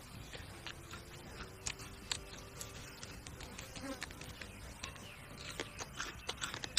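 A flying insect buzzing steadily, with a slightly wavering hum. Over it come frequent sharp clicks and crackles as charred grilled crocodile meat is torn apart and eaten.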